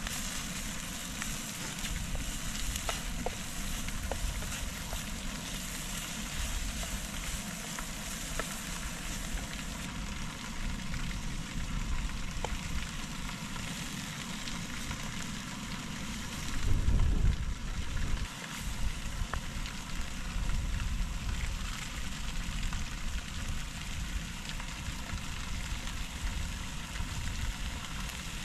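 Food frying in a pan: a steady sizzling hiss with scattered small pops. A brief low rumble comes about two-thirds of the way through.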